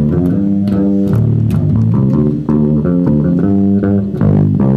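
Bass guitar being played: a steady run of plucked notes, changing pitch every fraction of a second.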